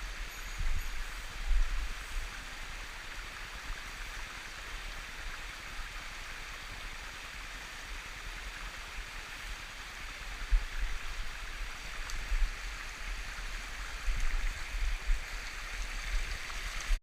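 Mountain stream rushing steadily over rocks, with irregular low bumps on the microphone now and then.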